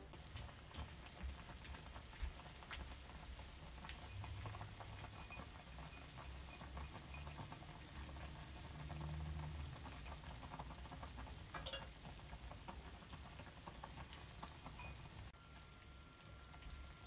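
Thick red chili sauce with fish cakes bubbling at a simmer in a saucepan: a faint, dense crackle of small bursting bubbles.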